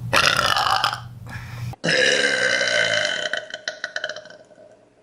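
Two long, loud human burps, one straight after the other. The second lasts about three seconds and fades out in a crackling rattle.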